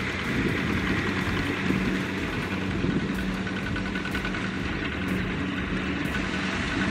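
Kubota ZT155 single-cylinder diesel engine on a two-wheel walking tractor, running steadily at an even pitch while it pulls a loaded rice trailer.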